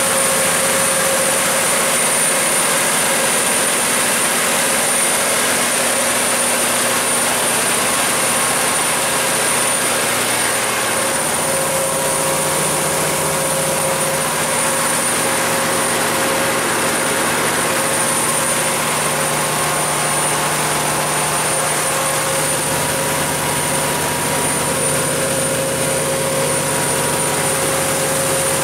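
Kohler 125RZG natural gas generator set running steadily on its GM 8.1-litre V8 engine, a constant engine hum with a thin high whine on top. The set is running up to speed and putting out its rated 480 volts.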